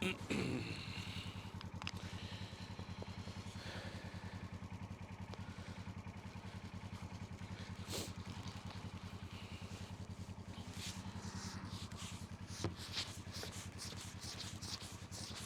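An engine or motor running steadily with a low, fast-pulsing hum, with a few knocks and clatters over it: one just after the start, one about halfway, one near the end.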